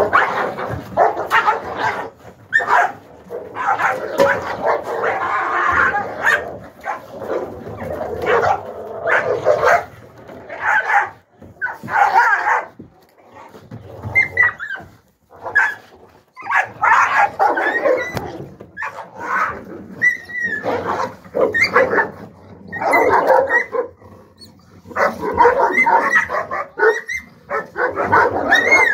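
Young Alabai (Central Asian Shepherd) dogs barking and yelping in loud, irregular bursts with short pauses, as in rough play or a scuffle among the pups.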